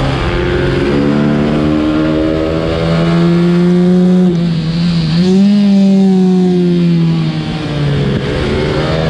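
A 125cc racing minibike's engine running hard on track, heard from a camera mounted on the bike itself. The pitch dips briefly about halfway, picks up again, sinks slowly, then climbs near the end.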